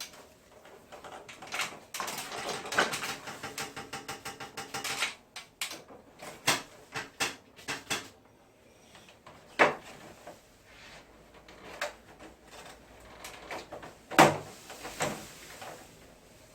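Clicks, knocks and rattling of hard plastic parts being handled while a wall-mounted air conditioner is taken apart for cleaning. There is a dense run of rattling early on and two sharp knocks later, the second the loudest.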